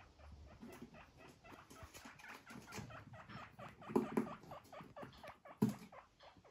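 Guinea pigs moving about on a rug: a rapid, uneven run of faint small ticks, with a louder soft knock about four seconds in and another near the end.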